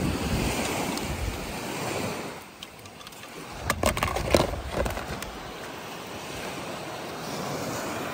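Surf washing on a beach with wind on the microphone, steady throughout. About four seconds in, a quick cluster of sharp clicks and knocks as a toy car is handled in a plastic tub.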